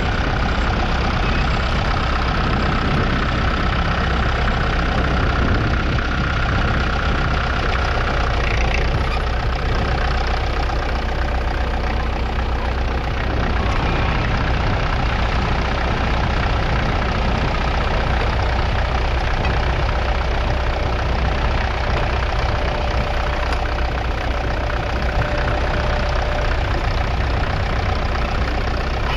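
1958 Massey Ferguson 65 MK1's 3.3-litre four-cylinder diesel engine running steadily.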